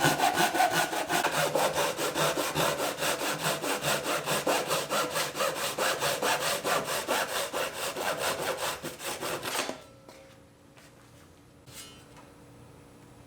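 Rapid, even back-and-forth strokes on a cypress board, about six a second, a dry scraping sound of a hand tool working the wood. It stops abruptly about ten seconds in, followed by a faint knock.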